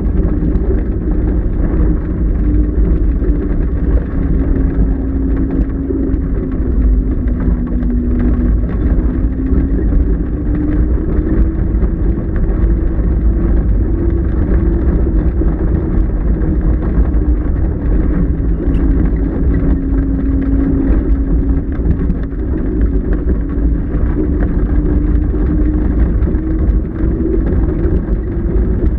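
Steady, loud low vehicle rumble heard inside the closed cockpit of the KillaJoule streamliner, with a faint tone in it that drifts down and back up a couple of times.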